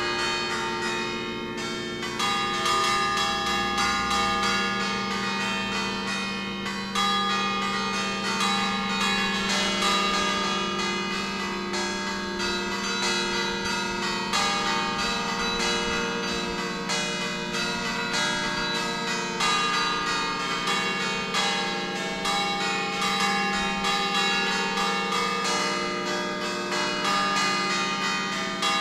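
Ring of eight church bells in B-flat, cast by Pruneri in 1909 with three recast by Ottolina in 1948, rung electro-manually in a fast, continuous melodic sequence. The strikes overlap, so each bell's hum carries on under the next ones.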